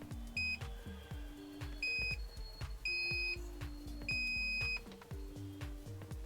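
Digital multimeter's continuity buzzer beeping on and off four times in short, uneven beeps as the probes touch a soundbar amplifier's output coil: the continuity comes and goes, a sign of a loose coil connection. Soft background music runs underneath.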